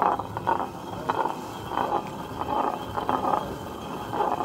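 Hand quern turned by hand, its upper millstone grinding grain against the lower stone: a steady grinding scrape that swells and eases in a regular rhythm, a little faster than once a second.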